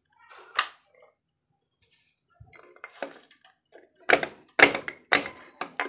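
Sharp metallic clicks and clinks from the opened clutch of a Suzuki Crystal motorcycle engine as the clutch housing and plates are worked by hand. A few faint ones come first, then louder ones about twice a second in the last two seconds.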